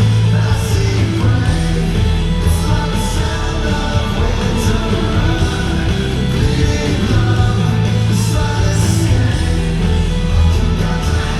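Live rock band playing loudly, with a lead singer over guitars, bass and drums, at a concert.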